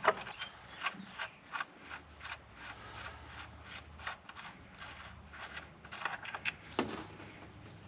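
Irregular clicks and knocks of a hand wrench being fitted and worked on the drain plug of a 327 small-block V8's oil pan, with a faint low hum setting in about two seconds in.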